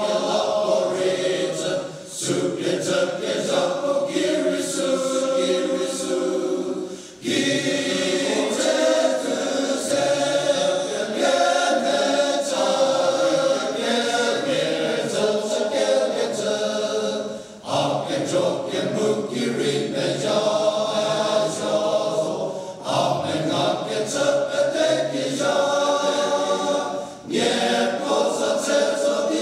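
Male choir singing in harmony, with brief pauses between phrases.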